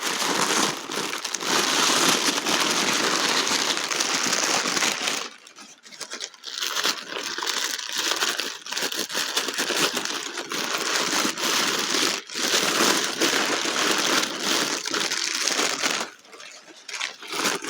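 Packing paper crinkling and rustling as a wrapped crystal is unwrapped by hand. There are short pauses about five seconds in and again near the end.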